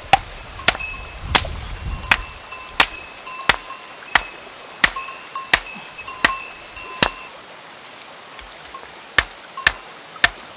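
Steel rock hammer striking stone with hard, ringing clinks, about eleven steady blows at roughly one every 0.7 seconds, then a pause and two more blows near the end: cracking open rock to look for fossils inside.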